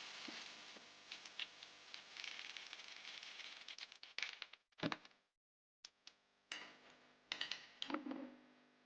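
Faint clicks and metallic knocks of hand tools working on the shock absorber's top mount bolts, with a faint hiss under the first half.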